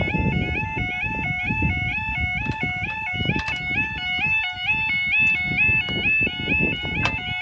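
Level crossing yodel alarm sounding: a loud warbling tone that steps rapidly up and down in pitch, several steps a second, with a low rumble and a few sharp clicks beneath it.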